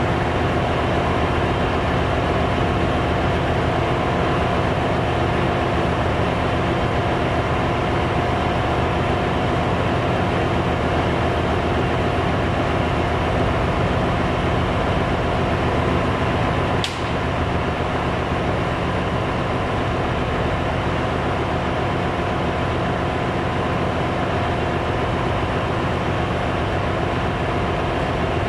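Steady drone of a ship's engine-room machinery, with a steady hum. The main diesel engine itself is stopped with its crankcase doors open, so the drone comes from other running plant. A single brief click a little past halfway.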